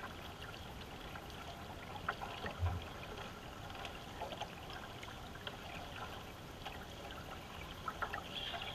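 Water splashing and trickling from single-blade paddle strokes and the canoe's hull moving through the river, with small clicks and a low thump about two and a half seconds in.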